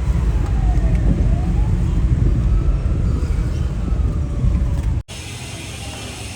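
Loud street rumble with wind on the microphone, and a siren slowly wailing down and up over it. About five seconds in it cuts off abruptly to a quieter steady background hum.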